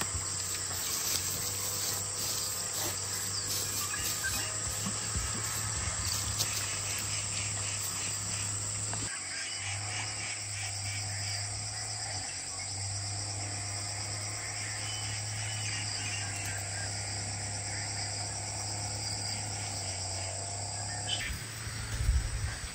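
Steady high chirring of insects, with a low steady hum beneath and scattered light clicks and knocks. The background changes abruptly twice, and a few heavier thumps come near the end.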